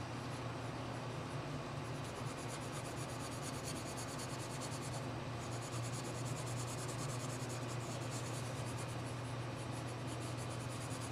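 Charcoal stick scratching across drawing paper in quick back-and-forth hatching strokes, with a short pause about five seconds in, over a steady low hum.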